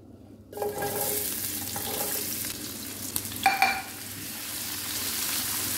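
Chopped onions tipped into hot olive oil with cumin seeds in a frying pan, starting to sizzle suddenly about half a second in and frying steadily as a spatula stirs them. A brief, louder scrape of the spatula on the pan comes about three and a half seconds in.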